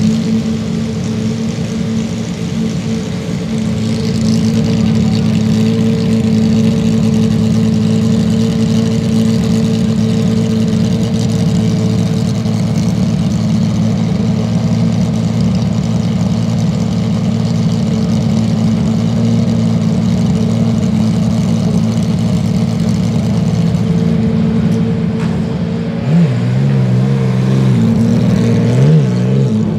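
Porsche 991.2 GT3 R's racing engine idling steadily, with its engine note rising and falling a few times near the end.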